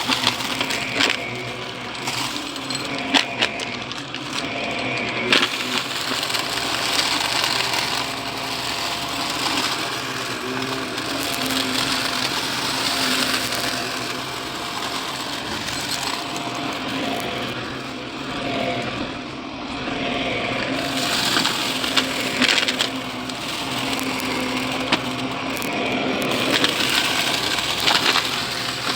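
Shark vacuum cleaner running with a steady motor hum while it sucks up crunchy, gritty debris, which crackles and clicks through it.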